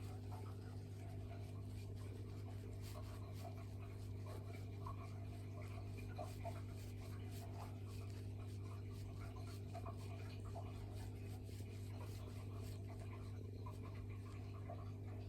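A steady low hum with faint, scattered rustling and scratching sounds over it.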